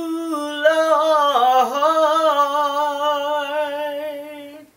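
A woman singing a gospel praise song a cappella. She holds one long note that steps down and slides through a short wavering run about a second and a half in, then holds steady again and fades out near the end.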